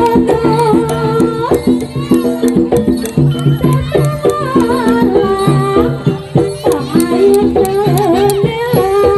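Traditional Javanese jaranan (kuda kepang) music playing continuously: held metallic tones under frequent percussion strikes, with a wavering, bending lead melody on top.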